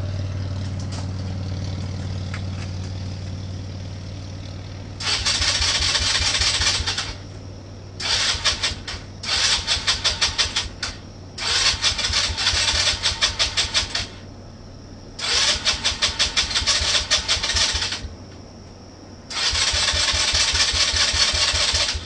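Electric starter repeatedly cranking a 2018 Polaris Phoenix 200 ATV's single-cylinder engine: about six pulsing bursts of a few seconds each, with pauses between, and the engine never catches. The no-start was traced to the carburetor's main needle clip being set on the wrong position.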